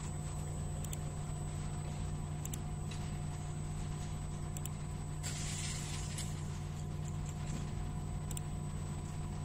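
Steady low hum with a few steady tones over it, a few faint clicks now and then, and a short burst of hiss about five seconds in.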